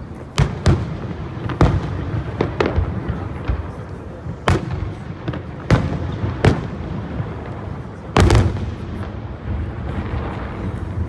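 Aerial fireworks shells bursting: a string of sharp booms at irregular intervals, the biggest about eight seconds in, with an echoing tail.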